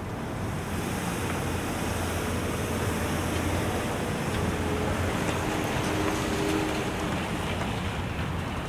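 Wind rushing over the microphone, with a low steady engine hum underneath.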